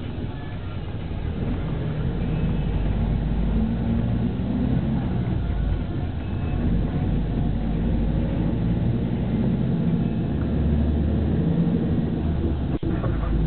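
Bus engine and road noise heard from inside the moving PKS bus, the engine note rising and falling as it drives through town. A single sharp click near the end.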